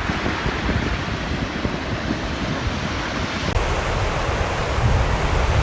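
Steady wind rushing over the microphone, an even noise with no bangs or crackle from fireworks.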